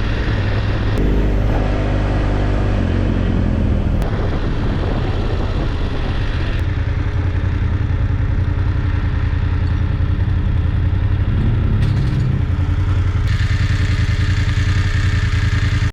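Adventure motorcycle engine running steadily while riding.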